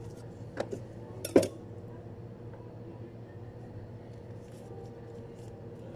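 Kitchen knife and avocado being handled on a cutting board: two light knocks, then one sharp clink about a second and a half in, and a few faint ticks later, over a steady low hum.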